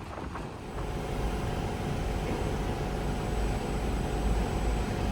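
Low, steady engine rumble of a motor vehicle, growing louder about a second in, with a faint steady hum over it.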